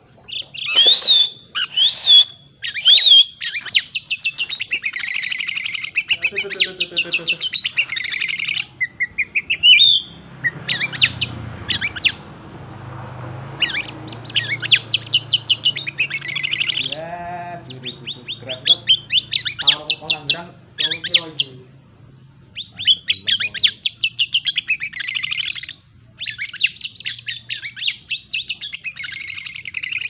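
Oriental magpie-robin singing in phrases of rapid trills, chirps and whistled glides, broken by short pauses. The song is built of mimicked calls of small birds.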